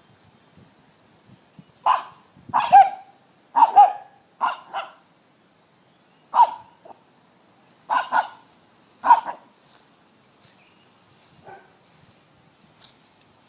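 Young Staffordshire terrier puppy barking at a locust: about a dozen short, sharp barks, often two in quick succession, from about two seconds in until about nine seconds in.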